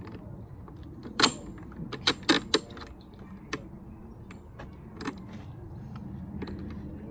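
Hard clicks and knocks of Ryobi OLM1833H lawn mower handle parts being fitted together by hand: a sharp knock about a second in, a quick cluster of three around two seconds, then a few lighter ticks.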